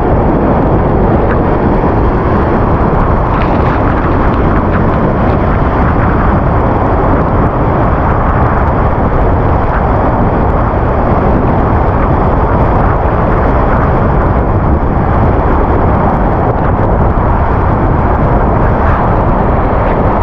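Falling water of a large waterfall close by: a loud, steady rushing noise that does not let up.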